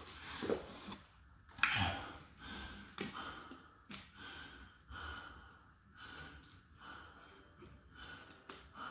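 Heavy breathing, with sighs and blown-out breaths, of a person recovering after a three-minute boxing round. A few light clicks or knocks come through, the sharpest about a second and a half in.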